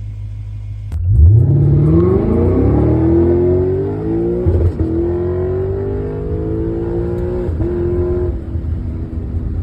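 Lexus IS 500's 5.0-litre V8 accelerating hard: after about a second of low idle the engine note jumps up and climbs through the revs, dropping back at two upshifts about three seconds apart, then holds a steadier note near the end.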